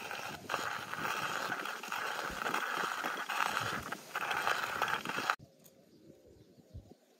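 Hand-cranked coffee grinder crushing coffee beans as its handle is turned: a gritty grinding in uneven spells with brief dips between turns, cutting off suddenly about five seconds in.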